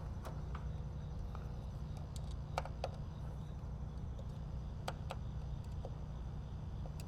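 Light, scattered clicks and taps of meter test leads and hands working at the unit's electrical terminals, over a steady low hum.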